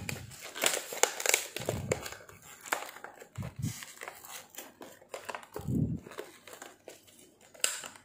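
Toy packaging crinkling and rustling as it is handled and pulled apart, in irregular crackles with a few soft thumps.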